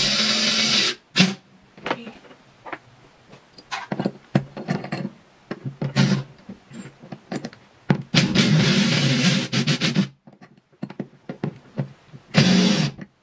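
Power drill running in short bursts, with scattered knocks and rattles between them, while a curtain rod is put up. There is a burst at the start, a longer one of about two seconds about two-thirds of the way in, and a short one near the end.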